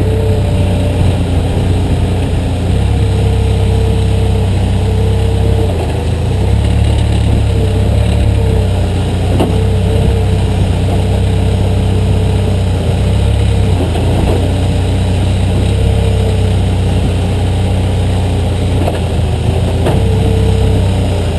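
Backhoe's diesel engine running steadily at working revs, with a whine that comes and goes over it and a couple of sharp knocks.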